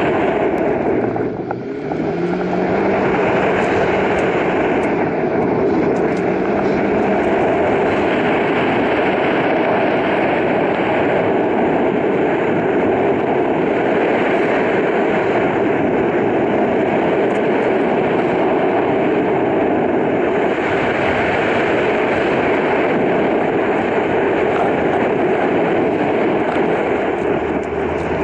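Jetta 1.8T's turbocharged four-cylinder engine pulling hard with road and wind noise, heard from inside the car's cabin as it drives an autocross course. The level dips briefly about a second and a half in, then the engine note climbs.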